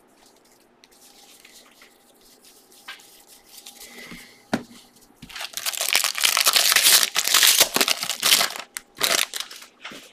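A trading card pack's wrapper torn open and crinkled by hand: faint handling at first, then loud crinkling from about halfway in for about three seconds, and a few shorter rustles near the end.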